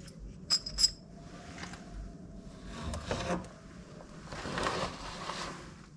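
Two quick, ringing metallic clinks under a second in, followed by scraping and rubbing of metal parts as the differential end cover and its gasket are fitted.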